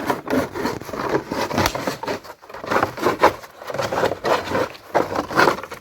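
Plastic lawn edge barrier being cut and handled: a run of irregular scraping and rubbing strokes.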